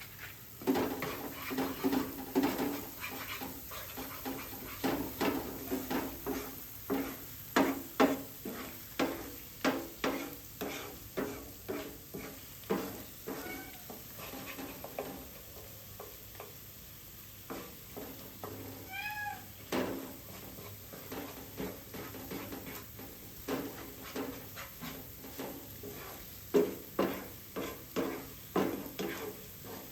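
Utensil stirring and scraping in a cooking pan: a steady run of sharp strokes, about one or two a second, each with a squeaky pitched scrape, pausing briefly past the middle. A couple of short high chirps sound around the pause.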